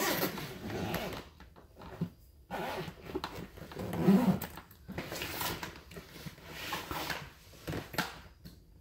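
Rustling, scraping and clicking as a backpack is handled and closed up, a string of short irregular strokes. A brief, louder voice-like sound comes about four seconds in.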